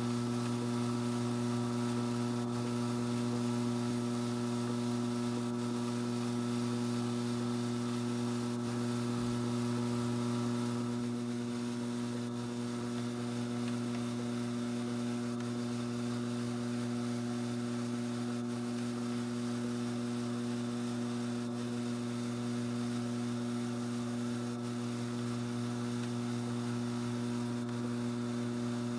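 Strauch Mad Batt'r electric drum carder running, its motor giving a steady, unchanging hum.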